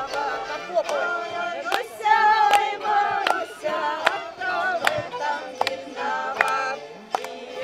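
Several voices singing a folk song together, with a sharp beat a little more than once a second.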